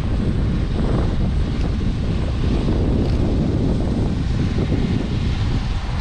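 Distant drone of a 2018 CLAAS Lexion 750 combine harvester working through soybeans, under a heavy, gusty wind rumble on the microphone.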